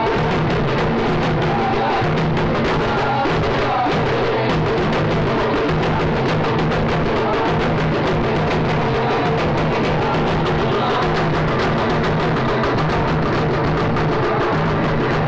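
A band of drums, barrel drums and a large copper-shelled drum beaten with sticks, playing a fast, dense rhythm without a break, over a steady low sustained tone.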